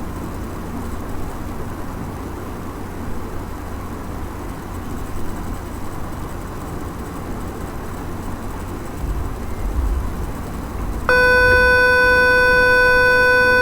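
Electronic buzzer of a DIY door-lock prototype sounding one continuous, steady, loud tone that starts abruptly about 11 seconds in. Before it there is only a low background rumble.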